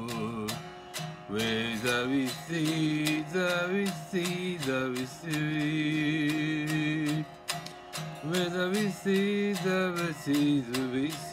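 A man singing his own song with long, wavering held notes while strumming an electric guitar.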